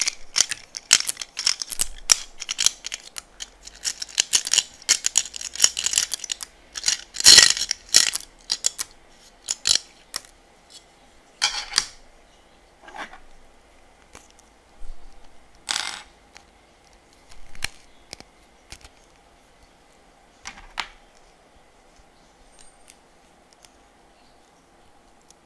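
Hard plastic beads poured from a small plastic box clattering onto a plastic tray: a dense rattle for the first several seconds, then single beads dropping and tapping every second or two, fading out near the end.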